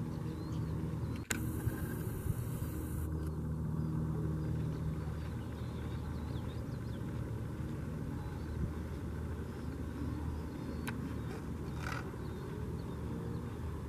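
Steady low outdoor rumble with no clear single source. About a second in, a sharp click is followed by a brief high hiss, and there are two faint clicks near the end.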